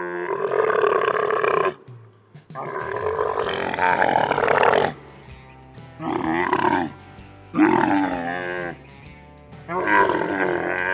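Camel calling in a series of drawn-out, wavering cries, about five, each a second or two long with short pauses between, over background music.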